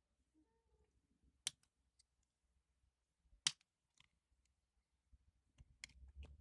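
Three loud, sharp single clicks about two seconds apart, with a few fainter ones between, typical of the Piaggio MP3 300's starter relay snapping in as the starter button is pressed, on a scooter that intermittently fails to start.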